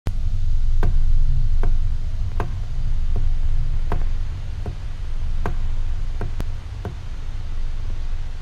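A low steady rumble with sharp ticks about every 0.8 s, about ten in all, stopping about seven seconds in.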